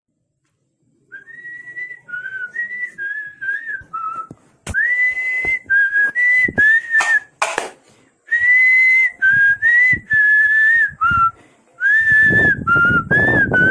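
A person whistling a slow melody of held, gliding notes, joined about a third of the way in by sharp percussive hits, with a low rumbling beat under the last couple of seconds.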